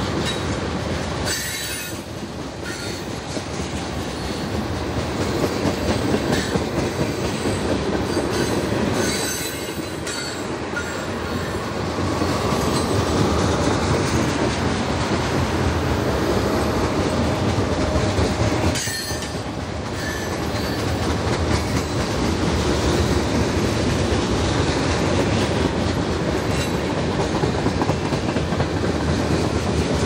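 Freight cars of a mixed freight train rolling past steadily, with the wheels running over the rails and a faint wheel squeal at times.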